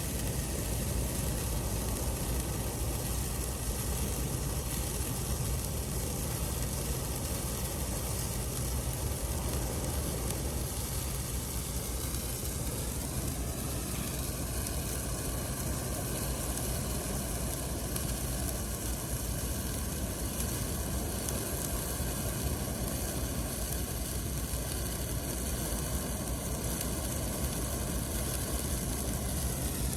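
Handheld colour-changing firework wand (fountain stick) burning with a steady hiss; the tone of the hiss shifts about halfway through.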